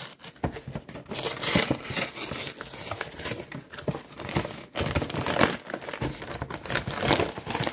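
A cardboard frozen-food box being torn open and handled, with the plastic bag inside crinkling: irregular rustles and sharp crackles.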